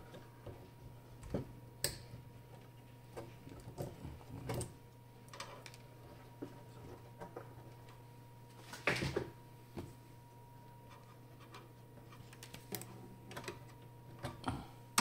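Scattered small clicks and taps of needle-nose pliers and plastic parts being handled on an electronics circuit board, with a louder knock about nine seconds in, over a faint steady electrical hum.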